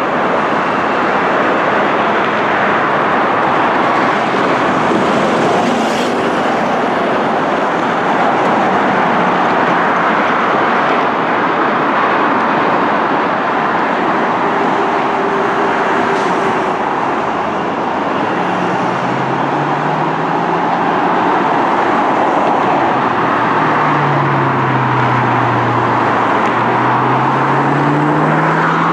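Boeing 787-9 jet engines on final approach and landing: a loud, steady roar of jet noise. In the second half, low tones slide down and back up in pitch during the rollout.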